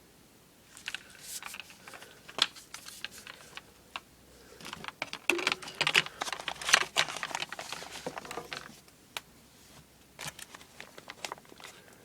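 Fireworks and their packaging being handled: irregular clicks, light knocks and crinkling rustles, busiest in the middle.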